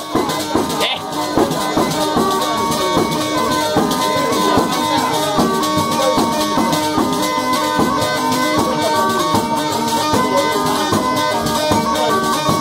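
Live southern Italian folk dance music, a tarantella: steady held drone-like tones over a fast, continuous jingling and rattling beat.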